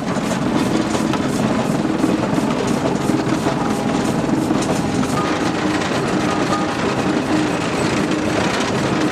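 Fowler Z-series steam ploughing engine running, with a fast, even beat of exhaust strokes and mechanical clatter.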